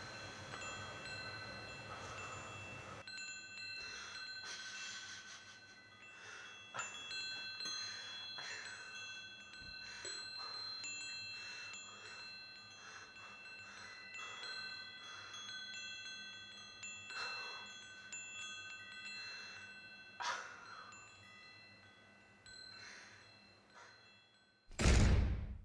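Chimes ringing in several overlapping, sustained high tones, with fresh soft strikes every second or two. About a second before the end, a loud, deep hit sounds once and then cuts off suddenly.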